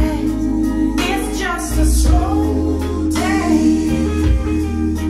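Blues-rock song playing through Canton Reference 1.2 DC floorstanding loudspeakers and a Canton subwoofer in a room, with guitar phrases over a deep, heavy bass.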